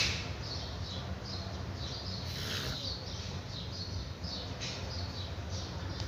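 Felt-tip marker flicked across a drawing sheet in quick short strokes: a string of small squeaks and scratches, a few each second, with one louder, longer stroke about two and a half seconds in.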